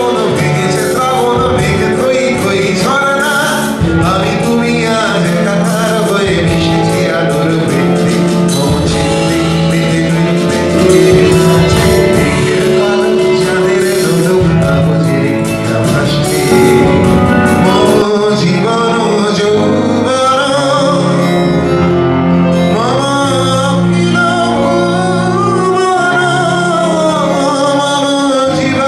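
Male vocalist singing a song live into a microphone, amplified through a PA, over keyboard and band accompaniment. The accompaniment thins out about two-thirds of the way through while the singing carries on.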